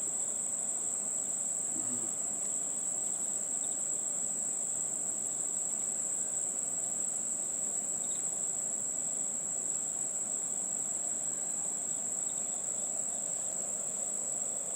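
Honeybees buzzing in a dense, steady hum around an open hive, over a steady high-pitched whine.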